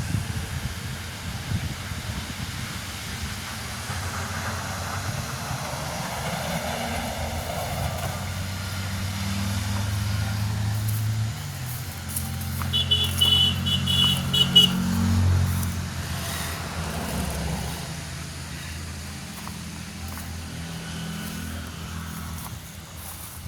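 An engine running steadily, its pitch shifting now and then. About halfway through there is a quick run of high beeps.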